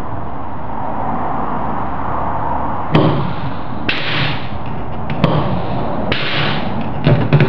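HSD electrospindle's pneumatic tool clamp cycled by a hand air valve, twice: each time a sharp clack, then about a second later a short hiss of air. Near the end come small metal knocks as the tool holder is handled at the spindle nose. A steady background noise runs under it all.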